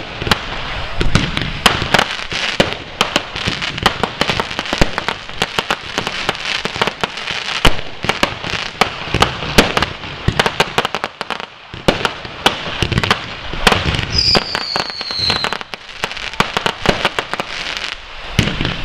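Fireworks going off: a dense, continuous run of crackling pops and sharp bangs from bursting shells. About three quarters of the way through, a brief high whistle falls in pitch.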